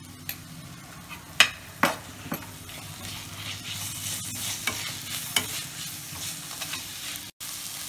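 Perforated metal spoon stirring vegetables and tomato sauce in a hot metal kadai. A few sharp clanks of spoon on pan in the first couple of seconds, then steady scraping over a frying sizzle from about three seconds in.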